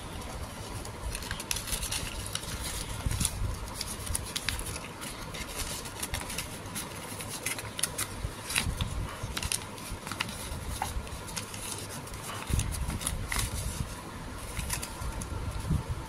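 Paper crinkling and rustling as white packing paper and a folded paper instruction manual are pulled out and unfolded by hand, with many sharp crackles throughout.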